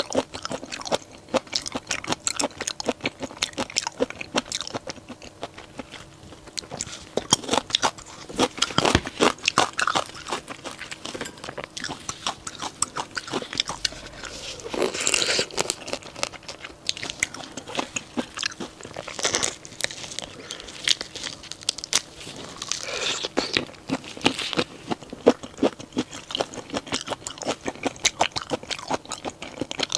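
Close-miked eating sounds: a person biting, crunching and chewing through crunchy shrimp, with a steady patter of crisp crackles and a few louder crunches.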